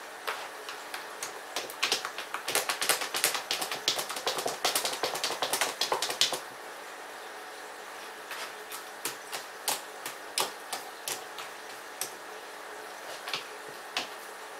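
Cat digging and scratching in the litter of a top-entry litter box: a dense run of crisp clicking rakes for a few seconds, then scattered single scratches.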